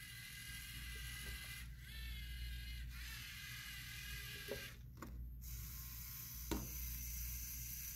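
LEGO Mindstorms EV3 robot's motors and gear train whirring faintly as it drives across the table. The whine shifts in pitch briefly about two seconds in, and a few faint clicks come in the second half.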